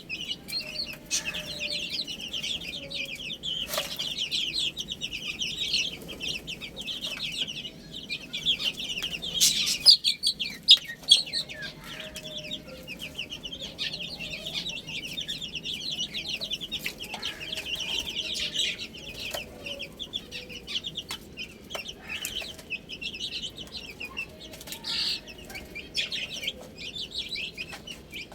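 A group of baby chicks peeping continuously, many short high chirps overlapping, with a few sharp taps scattered through.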